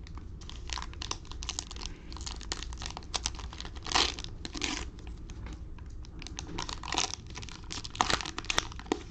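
Cellophane wrapper of a 2021 Mosaic basketball cello pack crinkling and tearing as it is opened, in a run of irregular crackles with louder rips about four, seven and eight seconds in.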